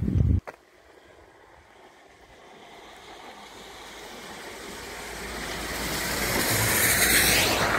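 A vehicle approaching and passing on a wet road: the hiss of tyres on wet tarmac swells for several seconds, is loudest near the end, then falls away. A short thump on the microphone at the very start.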